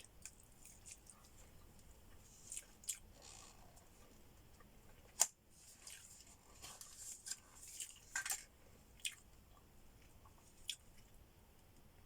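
A person chewing and biting food close to the microphone: soft, scattered crunches and wet mouth sounds, with one sharp click about five seconds in.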